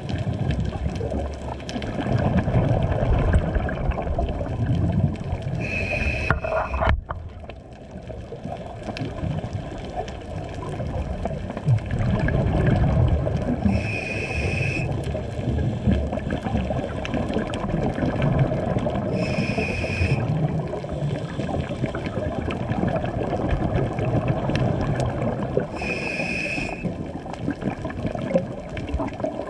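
Scuba regulator breathing underwater. A short, even-pitched hiss of inhalation comes about every six seconds, four times, and between them the exhaled bubbles make a low bubbling rumble.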